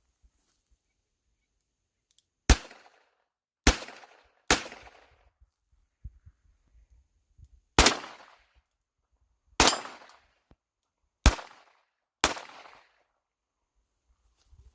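Seven single shots from a Smith & Wesson ten-shot .22 LR revolver, fired at an uneven pace of about one every one to three seconds, each dying away in a short echo.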